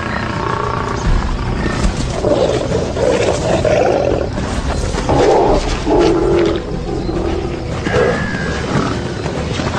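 Lions growling and snarling in a series of harsh, drawn-out calls, over background music.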